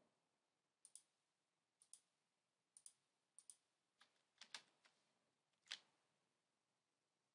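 Faint clicks of a computer mouse and keyboard: pairs of sharp clicks about once a second, then a denser run of louder clicks from about four seconds in while a citation is typed in.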